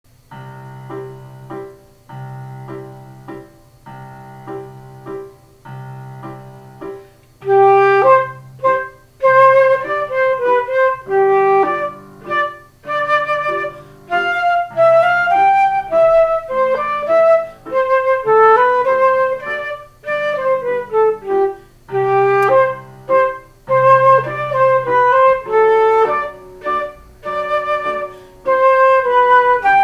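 Concert flute playing a melody in its lower-middle register over an accompaniment of low repeated chords. The accompaniment plays alone for the first several seconds before the flute comes in.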